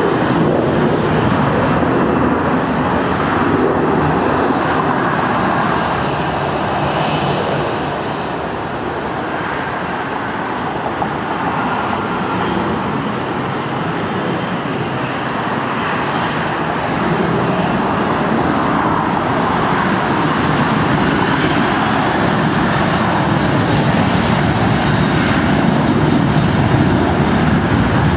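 Boeing 737 jet engines running as the airliner taxis and lines up on the runway: a steady loud rumble and hiss, with a thin rising whine about 18 to 20 seconds in.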